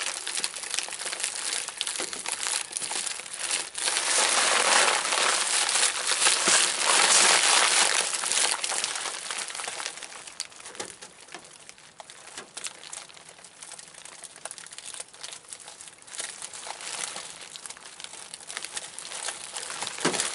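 Black plastic sheeting and a foil flexible vent duct crinkling as hands handle and push them into place, loudest for a few seconds starting about four seconds in, then quieter with scattered crackles.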